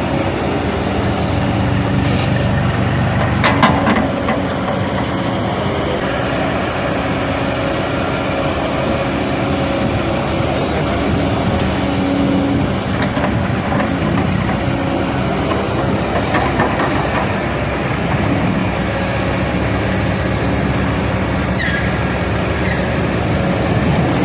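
Kobelco SK220 hydraulic excavator's diesel engine running steadily under work, with a few knocks, the loudest about three and a half seconds in and another around sixteen seconds.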